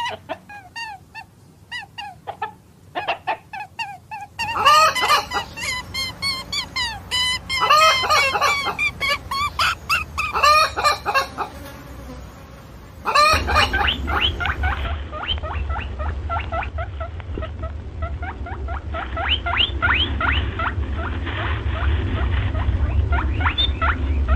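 Chickens calling: a few sparse chirps, then a dense, loud run of calls, and from about halfway on a steady string of short rising peeps over a low hum.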